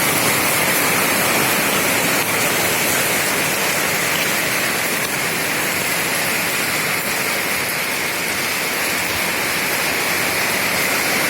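Fairly heavy rain falling steadily, a loud even hiss.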